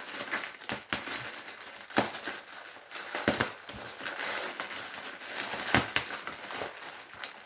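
Packaging crinkling and rustling as a mail package is pulled open by hand, with several sharper crackles and snaps, the loudest about two, three and six seconds in.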